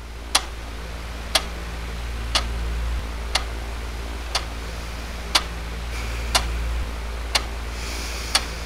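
Clock ticking, one sharp tick a second, over a steady low hum.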